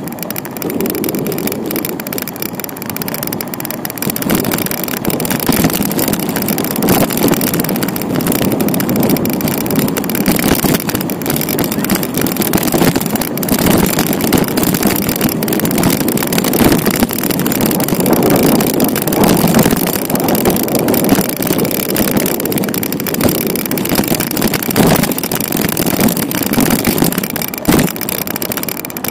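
Continuous noise of a bicycle ride through city streets: wind buffeting the bike-mounted camera's microphone mixed with road and passing traffic noise, rising and falling unevenly.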